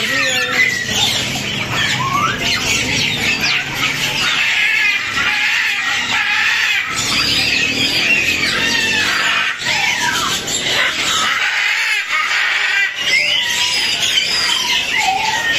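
Many caged birds chirping, whistling and squawking at once: a dense, continuous chatter of short rising and falling calls.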